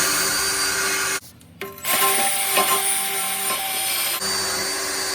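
Power-driven wire wheel scrubbing a broken steel exhaust pipe clean before welding: a loud, coarse scraping over the tool's steady whine. It stops for a moment about a second in, then starts again.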